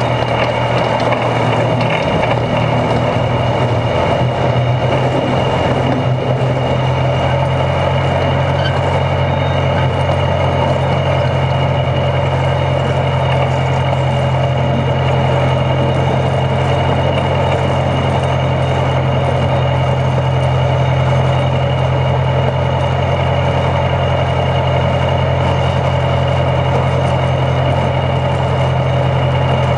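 Engine and running gear of a two-foot gauge geared locomotive, powered by an internal combustion engine, heard from underneath while it rolls along the track: a steady low engine hum over a constant mechanical rumble. The low hum grows fuller about seven seconds in.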